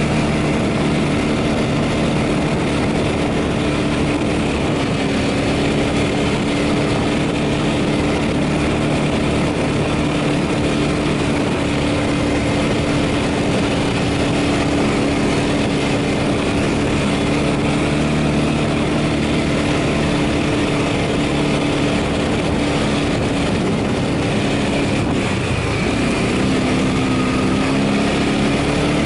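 ATV engine running steadily while riding, with a brief drop in pitch about 25 seconds in before it settles again.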